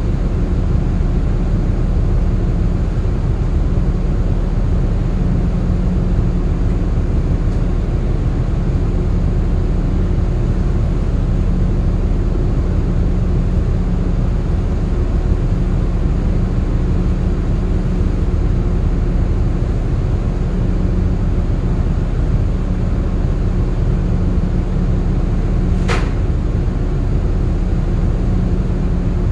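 Steady low drone of a ship's running machinery, with one sharp click near the end.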